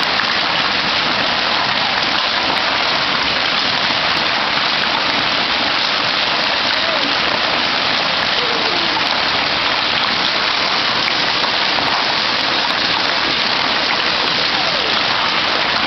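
Hail pelting garage roofs and pavement in a steady, dense patter.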